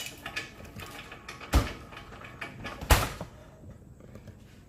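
Two sharp clunks from the scroll bandsaw's table mount being worked by hand, one about a second and a half in and a louder one just before three seconds, with light clicks of small parts between.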